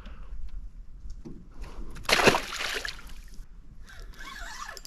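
A short splash of water about two seconds in, with light sloshing around it, as a caught bass is dropped back into the lake.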